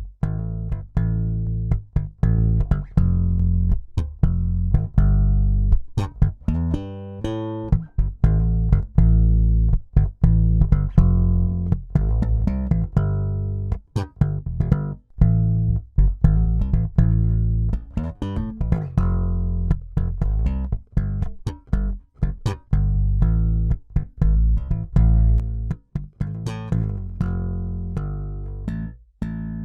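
Electric bass guitar playing a plucked line of short, choppy notes with brief gaps between them, run through a Mother WAI 2950 three-band EQ, a reissue of the Siemens W295. A last note rings on near the end.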